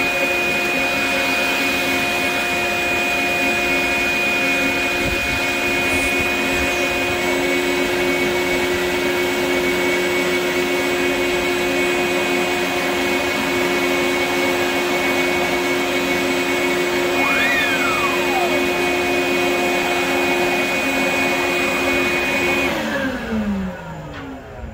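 Wet/dry shop vacuum, used as dust extraction for a dustless drywall sander, running with a steady whine, then switched off near the end, its pitch falling as the motor spins down.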